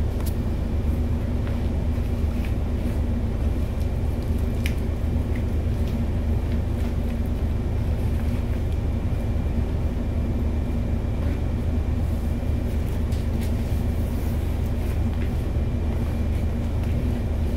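Steady low hum of a vehicle engine idling, heard from inside the vehicle's cabin.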